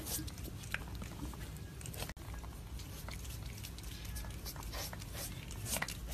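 A cat nosing and pawing at food on a plate: a scatter of small clicks and taps over a low steady hum.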